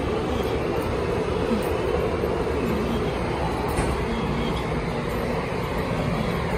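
Steady loud rumble of heavy city vehicle noise, continuous and without breaks, with faint wavering tones in the low rumble.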